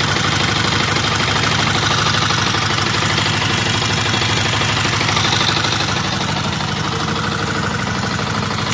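2012 Yamaha WR125R's single-cylinder four-stroke engine idling steadily through its stock exhaust.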